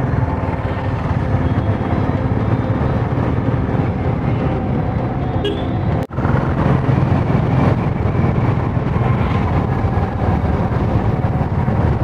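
A vehicle's engine running steadily while driving on the road. The sound cuts out for an instant about six seconds in.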